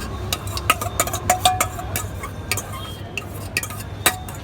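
A metal spoon clinking against a steel bowl in a quick, uneven run of sharp clicks, several with a short ring, over a steady low hum.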